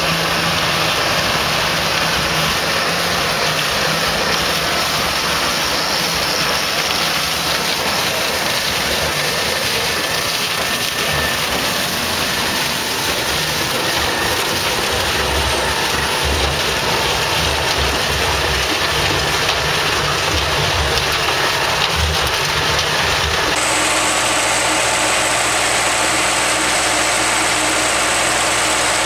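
A John Deere tractor and the harvester it pulls run steadily, engine and machinery together. About 23 seconds in, the sound cuts abruptly to a different steady engine and machine noise, from a tractor-mounted lavender harvester.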